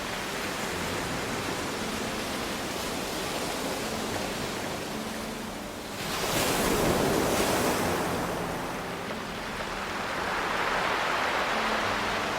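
Ocean waves washing onto a pebble beach, a continuous surf hiss. A large wave surges and breaks about six seconds in, and another swell rises near the end.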